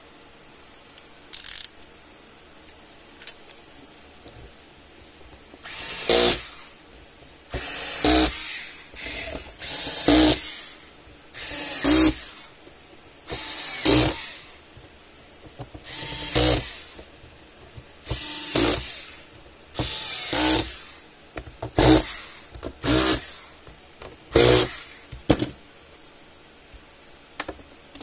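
Cordless drill-driver spinning in short whirring bursts, about a dozen of them roughly every two seconds, as it drives the screws of a plastic scale lid back in.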